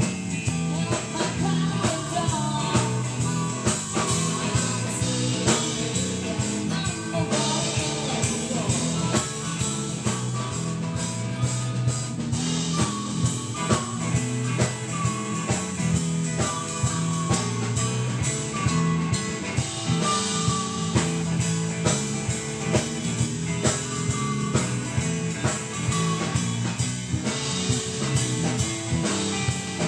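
Live blues-rock band playing: electric guitars, bass guitar and drum kit, with a steady drum beat and bending guitar lines.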